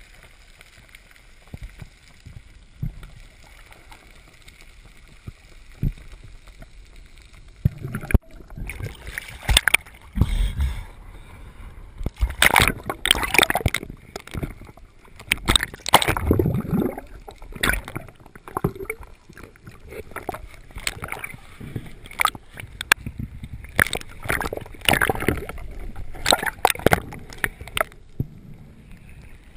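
Water sloshing and gurgling around the microphone: a steady low wash at first, then irregular splashes and gurgles from about eight seconds in.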